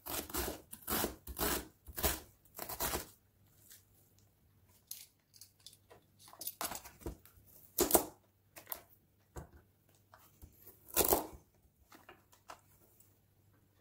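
Kitchen knife chopping an onion on a cutting board: a quick run of cuts in the first three seconds, then quieter scrapes and taps, with single louder knocks about eight and eleven seconds in.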